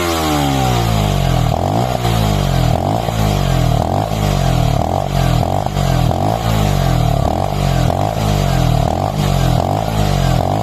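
Online Bestia 125 motorcycle engine being revved. A rev falls away at the start, then the throttle is blipped over and over, about three quick blips every two seconds, each one sinking back.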